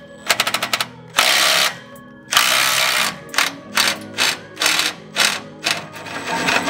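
Ratchet wrench clicking under a vehicle, undoing the exhaust's bolts: a rapid run of clicks, then longer swings and a string of short strokes, about two or three a second.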